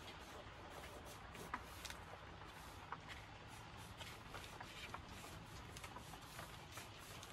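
Faint scratching of a pencil making short strokes on paper, with scattered light ticks, over a low steady room hum.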